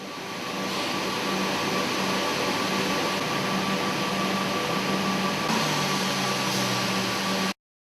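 Ruwac central industrial vacuum system running at full suction: a steady rushing of air with a whine and a low hum, building over the first second and cutting off suddenly near the end.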